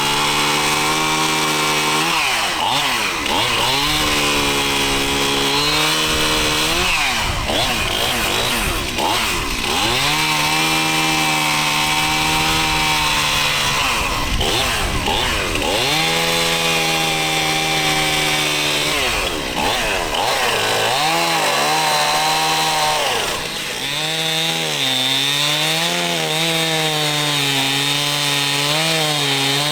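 Two-stroke chainsaw cutting firewood, held at high revs through each cut. Its note drops away and climbs back several times between cuts, and over the last few seconds it wavers up and down as it works in the wood.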